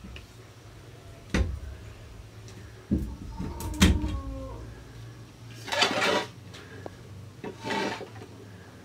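Metal kitchenware being handled: a single knock, then a clatter with a brief metallic ring about four seconds in, followed by two short scraping sounds.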